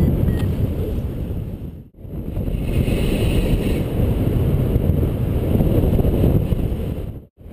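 Wind rushing over the microphone of a paraglider pilot's harness-mounted camera in flight: a steady low buffeting rumble. It cuts out briefly about two seconds in and again near the end.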